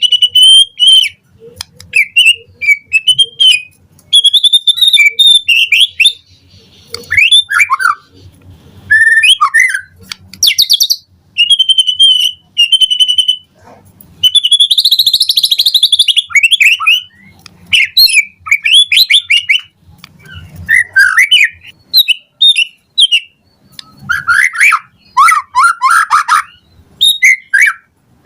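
White-rumped shama (murai batu) singing a loud, varied song: short whistled and chirped phrases in quick succession with brief pauses between them, and a harsh rasping phrase about halfway through.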